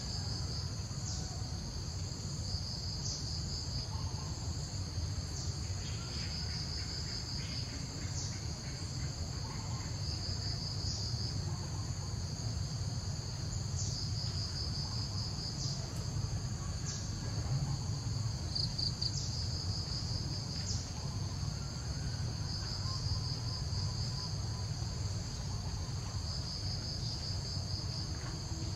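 Insects trilling in a steady high-pitched chorus, with stretches where the trill pulses rapidly, over a steady low rumble.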